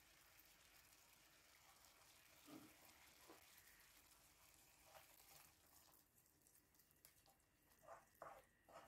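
Near silence with a faint hiss and a few soft taps, then a wooden spoon starting to stir and scrape a yogurt-and-spice mixture in a nonstick pan near the end.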